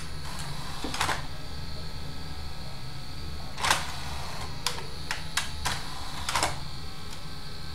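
Scattered sharp mechanical clicks from a DVD player's disc-loading mechanism over a steady low hum, with the tray just closed and the unit not yet playing the disc, which the repairer puts down to a tray sensor left out of place.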